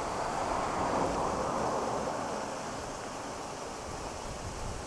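Steady rush of river water flowing below, swelling for the first couple of seconds and then easing.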